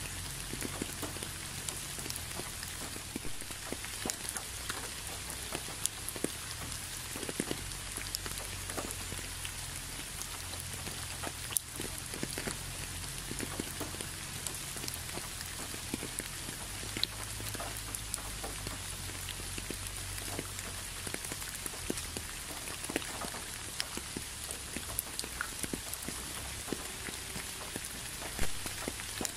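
Rain falling steadily, with many separate drops striking close by as scattered ticks over an even hiss.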